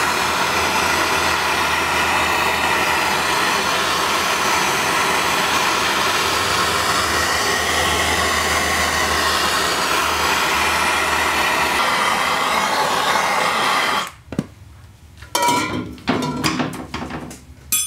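Handheld gas torch burning with a steady, loud hiss as it heats the transmission case around the bearing bore, then shut off about fourteen seconds in. A few short knocks and clinks follow.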